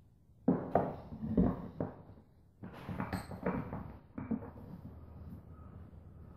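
Wooden axe handle knocking and clunking against a metal bench vise as it is set upright in the jaws and clamped, in two bursts of several knocks each.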